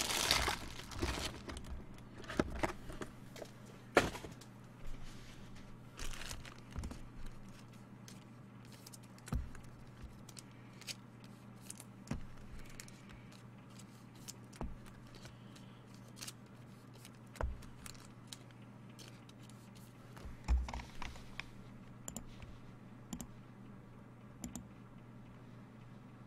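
Trading cards and a foil pack wrapper being handled: scattered crinkles, rustles and light taps, with louder crinkling near the start and again about twenty seconds in, over a steady low hum.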